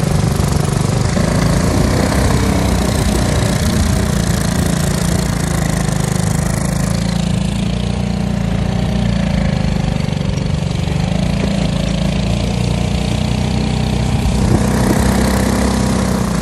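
Long-tail mud motor's small engine running steadily at speed, driving the boat through the water.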